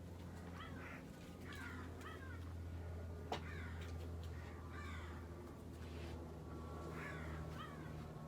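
Old ceiling fan running with a steady low electrical hum, overlaid by short, high, falling squeaky chirps that come irregularly every half second to a second, and a sharp click about three seconds in.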